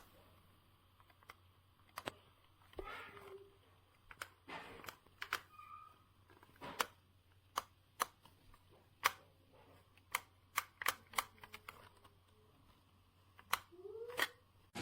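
Irregular sharp plastic clicks and short scrapes from a battery-powered toy leaf blower being handled, with no motor or blower noise running: the toy stays dead.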